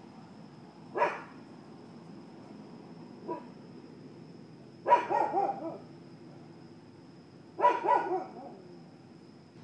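Dog barking in bursts: a single bark about a second in, a faint one around three seconds, then a quick run of several barks near the middle and another short run near the end.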